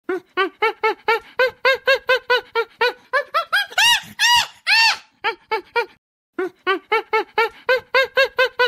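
Chimpanzee calling: a rapid, rhythmic series of hoots, about five a second, with a few louder, higher-pitched calls around four to five seconds in and a short pause about six seconds in.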